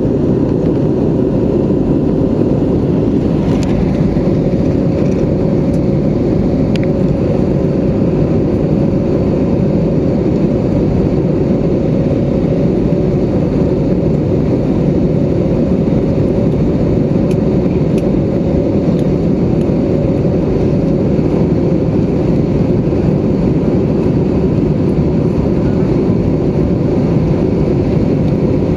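Steady cabin noise inside an Airbus A320neo in flight: a deep, even rush of its Pratt & Whitney geared-turbofan engines and airflow, with a faint steady hum on top.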